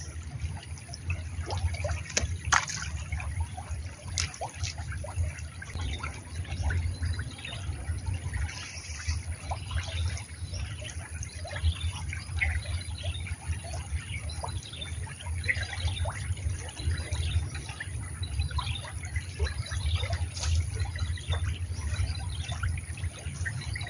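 Shallow stream water trickling and lapping, with many small splashes and drips over a steady low rumble.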